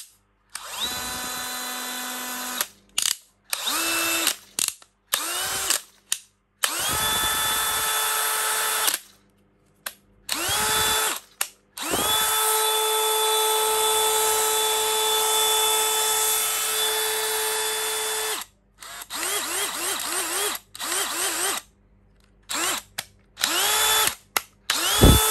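DeWalt DCD996 20V brushless cordless hammer drill run with no load in a series of trigger pulls. Each time the motor whines up to speed and holds a steady tone, and the pitch differs from run to run. The longest run lasts about six seconds and is followed by a quick string of short blips.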